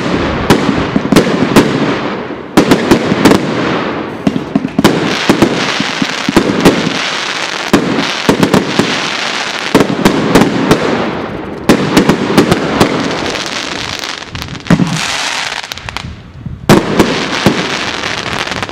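Tropic TB 208 138-shot firework cake firing: a rapid string of sharp bangs as the shots go off one after another, with the noise of the bursts filling the gaps between them. A last loud burst comes near the end.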